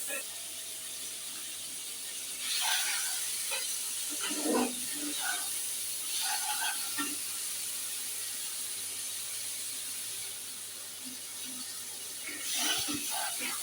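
Potatoes and spice masala sizzling in oil in a kadai, with a steady hiss. Intermittent stirring strokes come a few times, as the masala is fried down before water goes in.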